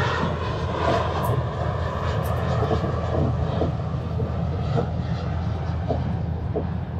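Airplane taking off and climbing, its engines droning steadily.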